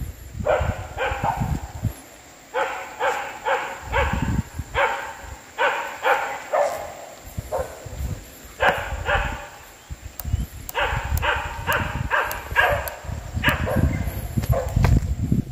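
A dog barking in repeated quick bouts of three to five barks, with low rumbling in between.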